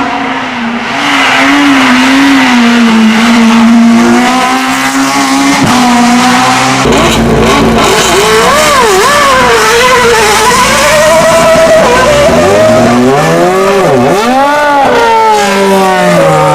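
Hillclimb race car's engine at high revs. The note holds fairly steady for several seconds, then from about seven seconds in it swings sharply up and down with throttle blips and gear changes.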